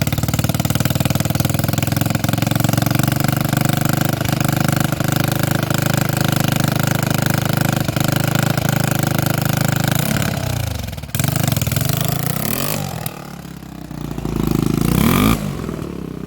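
Four-wheeler (ATV) engine running steadily after an engine and transmission rebuild. About ten seconds in its note changes and dips, then it revs up with a rising pitch and drops back near the end.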